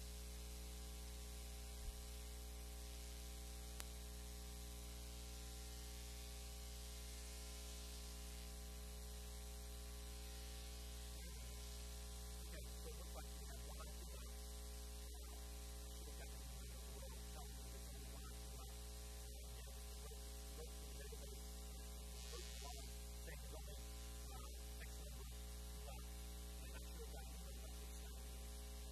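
Steady electrical mains hum, a low buzz with a stack of overtones, and two faint clicks about two and four seconds in.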